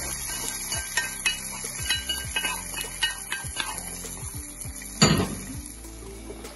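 A spoon scraping and clinking against a pan and a steel pot as the tempering is tipped in: a scatter of small clicks and knocks, with one loud clank about five seconds in.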